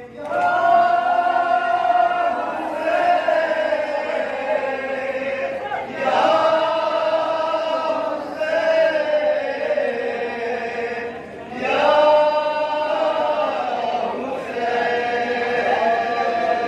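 Male voices chanting a noha, a Shia lament for Imam Hussain: a lead reciter at the microphone with other men joining in. The chant runs in long phrases of a few seconds each, breaking briefly between them.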